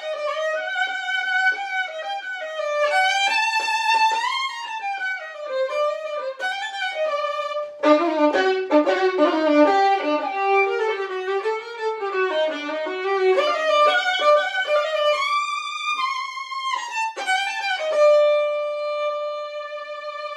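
Solo violin playing a klezmer melody with slides between notes. About eight seconds in the tune drops into a lower register, and near the end it settles on one long held note.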